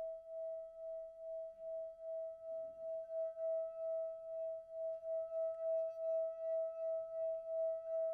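A single sustained ringing tone that swells and fades in a steady pulse about twice a second, the pulse quickening toward the end. Fainter, higher ringing tones join about three seconds in.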